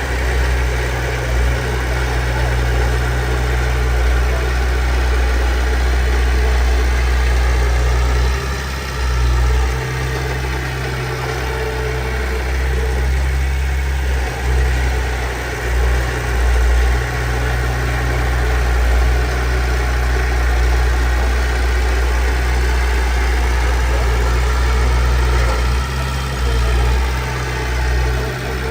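Heavy diesel engine of earthmoving machinery running, its note swelling and easing with load.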